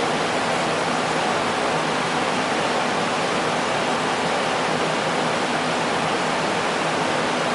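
Steady, even hiss of background noise with a faint low hum underneath, unchanging throughout.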